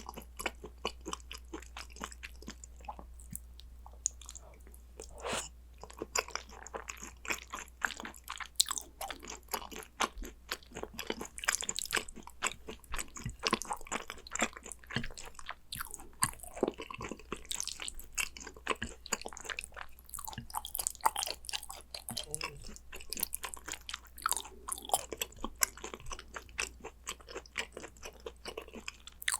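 Close-miked chewing of gochujang-seasoned raw beef (yukhoe). It is a dense, irregular run of small mouth clicks and bites.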